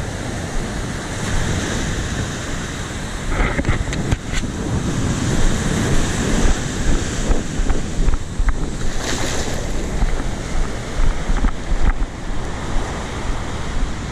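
Surf washing in on a sandy beach, with gusts of wind buffeting the microphone.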